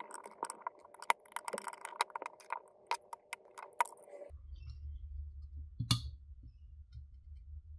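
Small sharp plastic clicks and rattles of the Amazon Echo Pop's main circuit board being worked out of its plastic housing by hand: a quick run of clicks for about four seconds, then one louder click about two seconds later.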